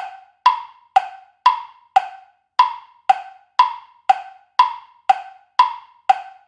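Countdown-timer tick-tock sound effect: sharp wood-block-like clock ticks, about two a second, alternating between a higher and a lower tick, stopping shortly before the end.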